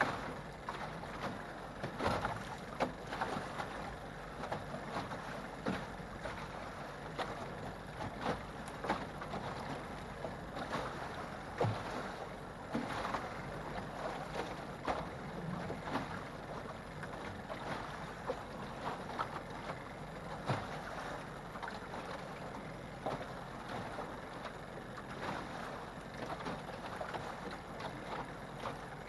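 Lake swells slapping irregularly against the flat-bottom hull of an aluminum Alumacraft jon boat as it rocks, over a steady wash of water and wind.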